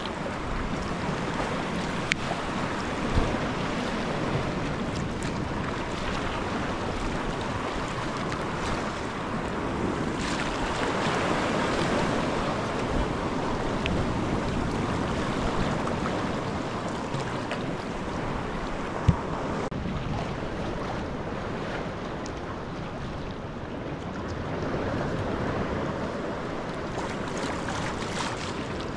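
Choppy sea water splashing and lapping around a sea kayak being paddled, with wind buffeting the microphone. A few short sharp knocks, the loudest about two-thirds of the way through.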